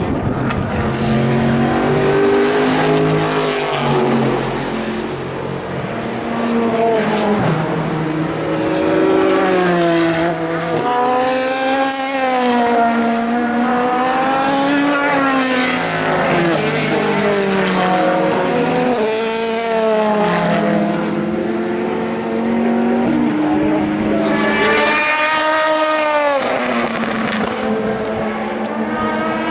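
Endurance race cars passing one after another through a corner, each engine's pitch falling and climbing again as the car brakes, shifts down and accelerates away through the gears.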